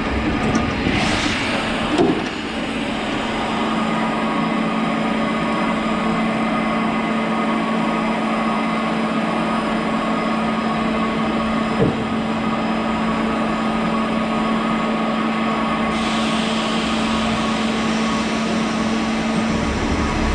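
Steady hum and hiss from a standing steam train, with a constant low drone throughout and a single knock twice. A higher hiss, like escaping steam, joins about three-quarters of the way through.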